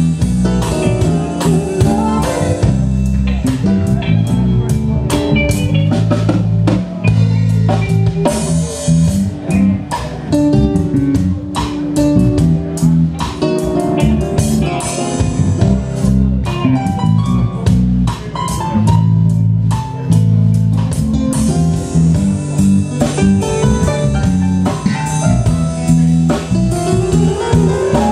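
Live reggae band playing an instrumental passage: guitar, drum kit and keyboards over a steady beat.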